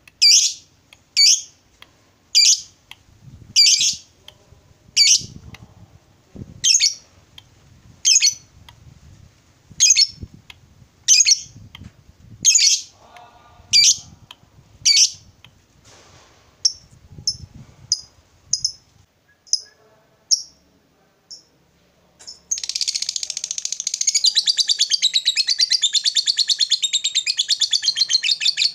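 Lovebird calling: sharp, high single calls about once a second, then shorter, quicker chirps. From about three-quarters of the way in, it breaks into a long, unbroken, rapid chattering trill, the 'ngekek' prized by lovebird keepers.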